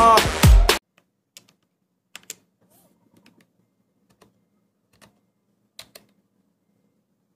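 A loud voice over music cuts off abruptly under a second in. Then comes near quiet with a few faint, scattered sharp clicks.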